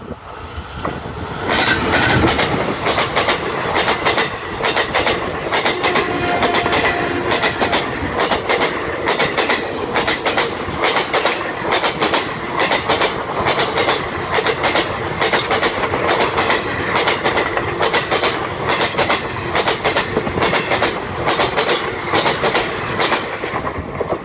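An express train, a WAP-4 electric locomotive hauling ICF passenger coaches, passing close by at speed: a loud rumble of wheels on rail with a steady, rhythmic clickety-clack. It swells about a second and a half in as the locomotive arrives and starts to fade near the end as the last coaches pass.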